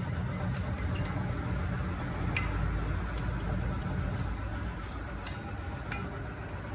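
Tyre-change work at a tyre bay: a handful of sharp, separate metallic clicks and taps at irregular intervals over a steady low rumble that eases after about four seconds.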